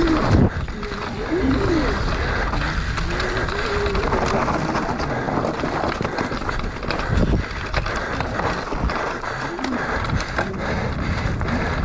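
Mountain bike descending a dirt trail at speed: continuous tyre rumble and crunch over dirt, roots and stones, with the chain and frame rattling and sharper knocks from hard hits, the biggest about 7 seconds in.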